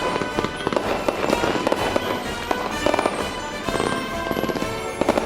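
Fireworks going off, with many sharp pops and crackles in quick succession over music.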